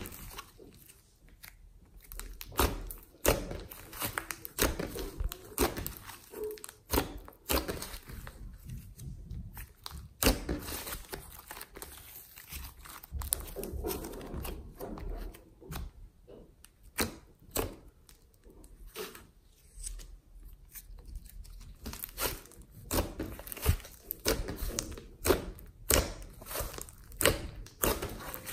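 Hands kneading, stretching and poking a thick glossy slime mixed with clay, giving irregular sticky pops, clicks and crackles as it is pulled and pressed.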